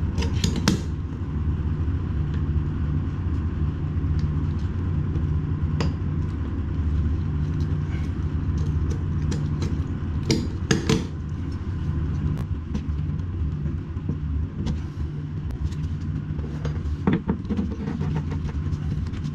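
A steady low hum with a few sharp clinks and knocks of hand tools at work on plumbing, the loudest pair about ten seconds in.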